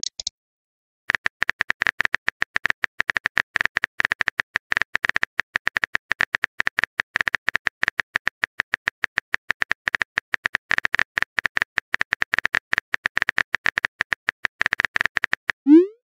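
Electric school bell ringing for dismissal: a long, rapid rattle of clapper strikes on a bell with a steady high ring, starting about a second in. Near the end a short rising pop and chime sound as a new chat message appears.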